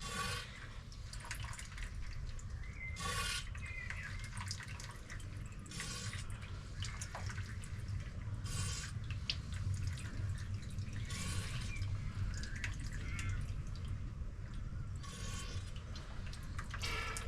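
Fork oil draining out of a KYB open-chamber fork leg into a bowl, with a short gurgling splutter about every two to three seconds as air pushes through the oil. A steady low hum runs underneath.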